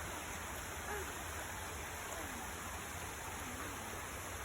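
Steady rushing of a waterfall, an even hiss of falling water, with faint distant voices a few times underneath.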